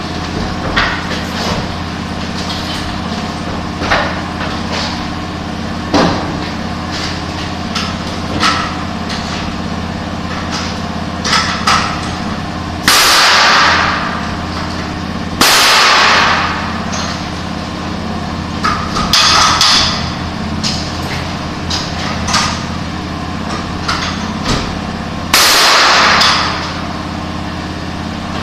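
Building work: scattered knocks and clanks over a steady low machine hum, broken by four loud rushing bursts of about a second each.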